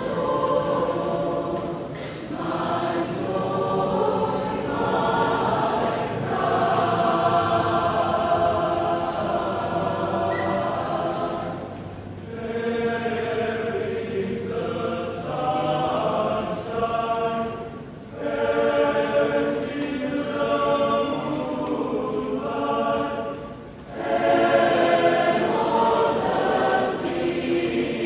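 Mixed choir of women's and men's voices singing a hymn in sustained phrases, with brief breaths between phrases.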